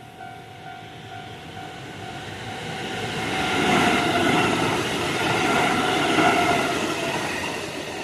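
A Kintetsu 8600-series electric train running past on the rails. Its noise rises to a peak about four to six seconds in, then fades as it moves away.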